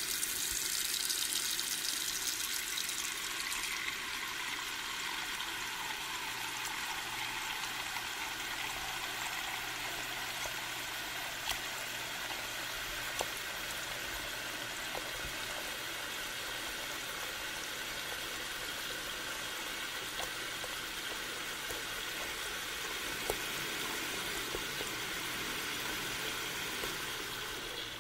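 Water running steadily, a continuous pouring splash like a tap running into a basin, with a few small sharp drips over it. It cuts off at the end.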